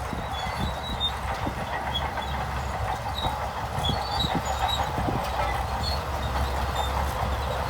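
Shantui bulldozer's diesel engine running steadily with a low drone, with irregular clanks and knocks from the steel crawler tracks.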